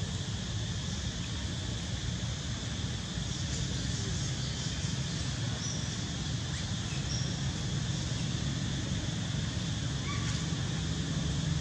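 Steady outdoor ambience: a low, even rumble under a continuous high insect drone, with a few short, faint bird chirps.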